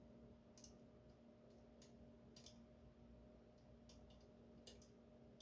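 Faint, irregular clicks of a lock pick working the pins of a well-worn Assa 700 lock, over a steady low electrical hum.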